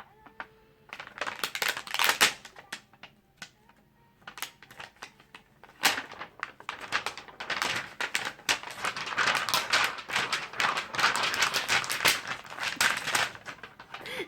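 A small object clicking and clattering as a baby handles it: irregular rapid taps, a few short clusters at first, then dense and almost continuous from about six seconds in.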